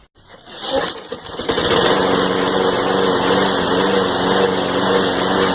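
Lawn Boy push mower engine catching in the first second or so and then running steadily. It idles a little rough, which the owner puts down to old fuel still left in it.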